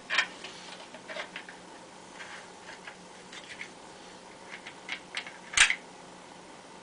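Small metal clicks and scrapes of a TOZ-99 .22 rifle's sear and bolt parts being pressed and fitted back together by hand, with a sharper click about five and a half seconds in.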